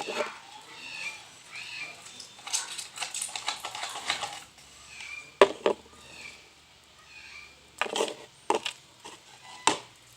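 Slime ingredients being handled and mixed in a container: scraping and stirring noises, with several sharp knocks of a utensil or bottle against it.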